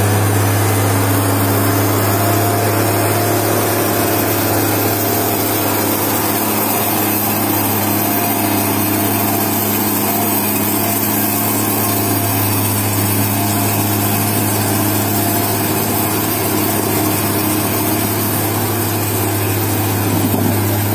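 Farm tractor's diesel engine running steadily under load, hauling a log-laden trailer through deep mud, with an even low hum that holds its pitch.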